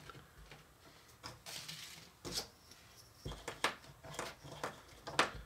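Soft scattered taps, knocks and rustles of hands working a ball of cookie dough on a plastic mat and handling a small toy rolling pin, which knocks against the mat as it is rolled over the dough.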